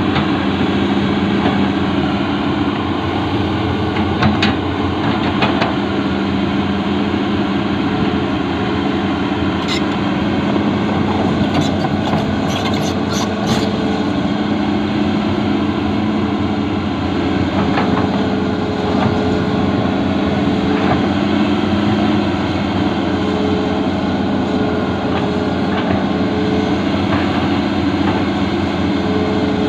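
Excavator diesel engine running steadily, with a few short sharp clicks partway through.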